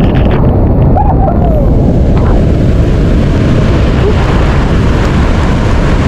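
Victoria Falls: a loud, steady rush of falling water, deepest in the low end, that fills out higher after a second or so.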